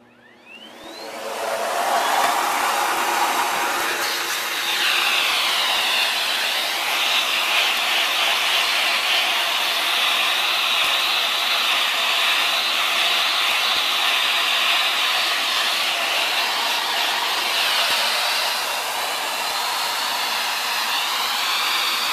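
Handheld vacuum cleaner switching on with a rising whine, then running steadily as it sucks dust out of a laptop's heatsink fins and cooling fan. Its pitch shifts a few times as the nozzle is moved.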